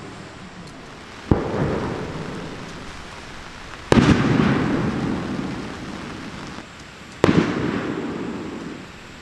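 Three close thunderclaps, about two and a half seconds apart: each a sudden crack that rumbles away over a couple of seconds. Steady rain hisses in between.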